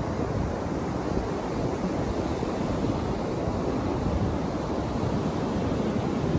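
Ocean surf breaking in a steady rush, mixed with wind buffeting the microphone in low, uneven gusts.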